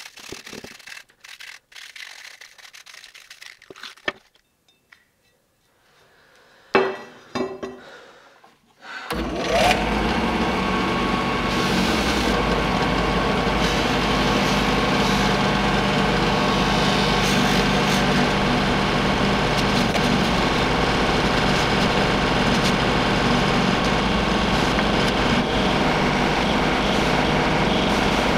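Light scraping of hand sanding on a steel cleaver blade, then about nine seconds in a benchtop drill press with a sanding disc in its chuck starts suddenly and runs steadily. The steel cleaver blade is held against the spinning disc.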